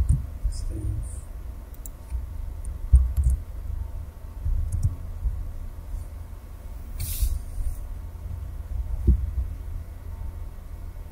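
Steady low hum with a few dull thumps and some faint clicks, and a short hiss about seven seconds in.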